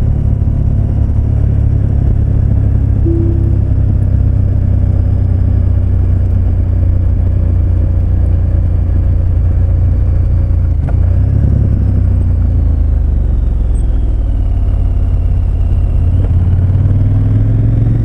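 KTM 1290 Super Adventure S's V-twin engine running steadily on the move under heavy wind and road noise, heard on board. Near the end the engine note rises.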